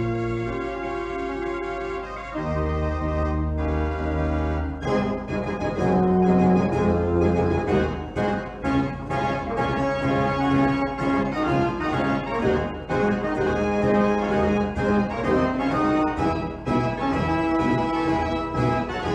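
Background music with held organ-like chords, joined about five seconds in by a steady beat.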